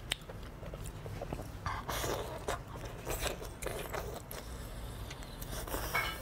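Close-miked wet biting and chewing of braised lamb intestine, with scrapes as the meat is pulled apart by gloved hands.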